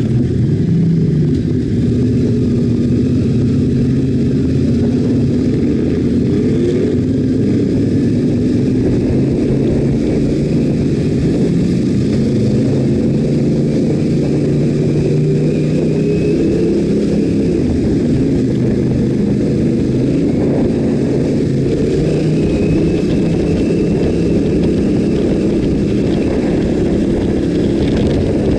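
Yamaha Ténéré 700's 689 cc parallel-twin engine running at low revs, its pitch rising and falling gently with the throttle as the bike is ridden slowly.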